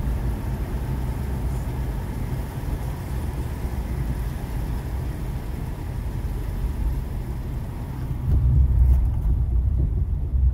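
Car cabin sound while driving in rain: a steady low engine and road rumble with a fainter hiss above it. About eight seconds in, the rumble grows louder while the hiss drops away.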